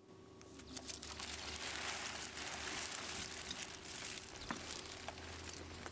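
Rustling of plastic sheeting and outdoor wind noise on the microphone, with scattered small clicks, coming up about a second in after a near-silent start.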